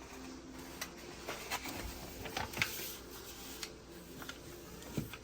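Soft handling noises: scattered light clicks and rubbing, with one louder knock near the end.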